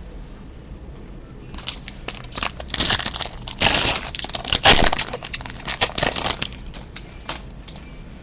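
Wrapper of a Topps Finest football card pack crinkling and tearing as it is opened by hand. It starts about a second and a half in, is busiest near the middle and dies down near the end.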